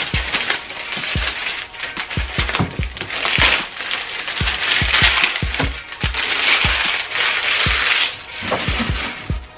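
Clear plastic wrapping crinkling and rustling as it is pulled off and handled, over background music.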